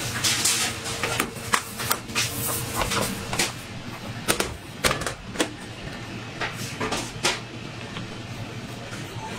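Metal baking trays clattering against racks and a stainless-steel table as they are handled with oven mitts: a string of sharp metallic knocks and rattles that thins out near the end.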